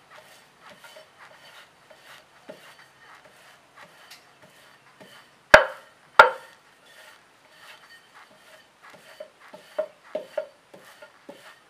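Steel rolling pin rolling filled dough on a floured wooden board: faint, repeated rubbing and light tapping, with two sharp knocks about half a second apart midway through.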